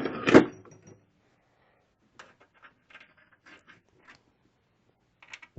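Computer case side panel going back on: one loud knock as it meets the case near the start, then a few faint taps and scrapes.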